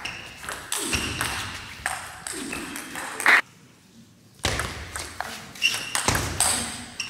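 Table tennis rally: the plastic ball clicking off rubber bats and the table in quick succession. About halfway the strokes end in a loud burst and stop for about a second, then another rally starts.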